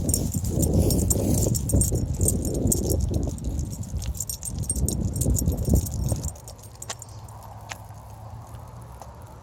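Small metal pieces jingling and clinking rapidly over heavy low rumbling and rustling close to the microphone. After about six seconds it drops suddenly to a quieter steady low hum with a few faint clicks.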